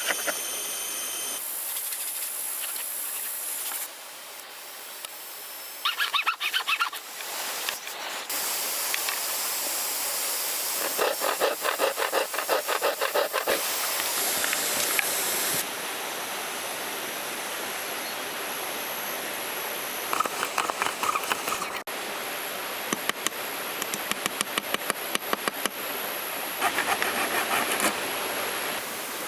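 A hand tool working bamboo in quick, evenly spaced strokes, in short runs that start and stop abruptly, over a steady hiss.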